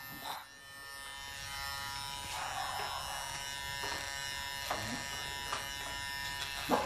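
KM-719 electric hair clipper running with a steady buzz while its blade is worked through the hair at the side of the head.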